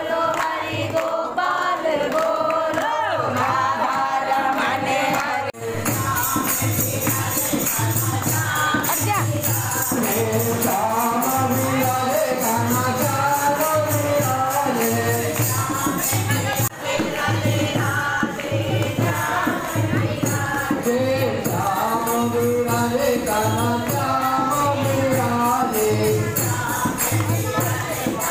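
Group of voices singing a Hindu devotional song. About six seconds in it switches to singing over a steady drum beat with jingling percussion.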